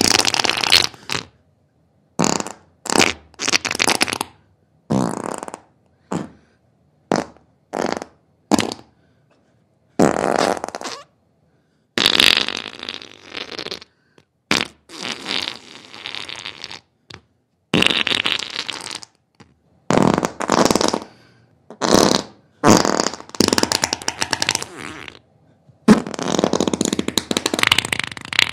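A long run of separate fart sounds from an upset stomach, some short pops and some drawn-out sputters lasting a couple of seconds, with silent gaps between them.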